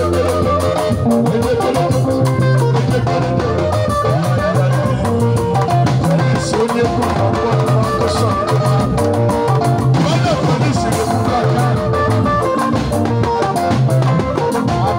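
Live band playing with electric guitars and a drum kit over a steady beat.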